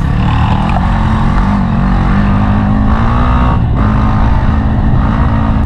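Dirt bike engine running under throttle, heard from on board the bike as it rides a dirt trail. The pitch holds steady and edges up, eases off briefly about three and a half seconds in, then picks up again, over a heavy low rumble.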